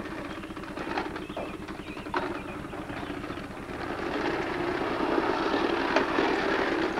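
Plastic toy bubble lawn mower rolling on concrete, a rapid rattling clatter from its wheels and mechanism, louder from about four seconds in as the toddler pushes it along.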